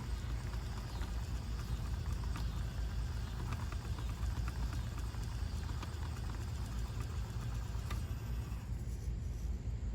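Axial SCX24 micro RC crawler working its way up a rock: faint small-motor drive and tyres scrabbling, with scattered small clicks and ticks over a steady low rumble.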